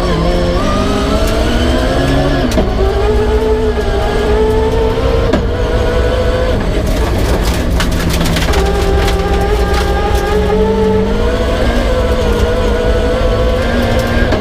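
Peugeot 306 rally car's engine working hard through the gears on a special stage, climbing in pitch and dropping at each shift, with shifts about 2.5 and 5.5 seconds in. Midway the engine eases off briefly amid a burst of clattering, then pulls up through the revs again.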